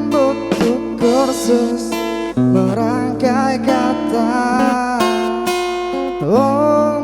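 Acoustic guitar strummed in held chords under a singing voice that slides and bends between notes, with a long upward vocal glide about six seconds in.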